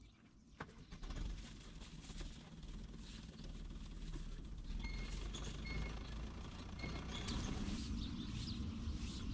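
Faint outdoor ambience: a low steady rumble, with three short high bird chirps about halfway through.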